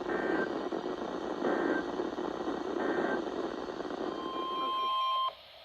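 Weather radio EAS/SAME data signal over receiver static: three short warbling data bursts about 1.4 seconds apart, the end-of-message code closing a warning. Then a steady alert tone sounds for about a second and cuts off suddenly.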